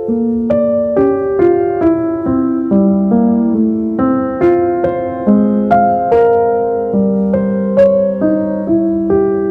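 Gentle, slow piano music: single notes struck about one to two a second over sustained lower notes, in a soft, calm melody.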